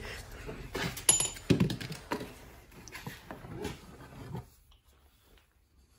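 Hands rummaging in a cardboard box of engine parts: cardboard rustling with irregular light knocks and clicks of metal parts. It cuts off suddenly about four and a half seconds in.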